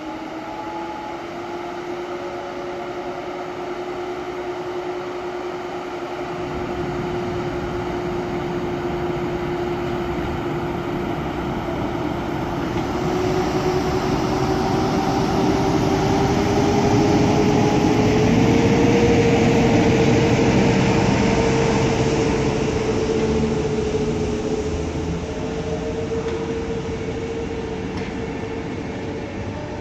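PKP Intercity train hauled by an EP09 electric locomotive moving along the station tracks. There is a steady whine that climbs slowly in pitch, over rail noise that swells to its loudest about two-thirds of the way through and then eases off.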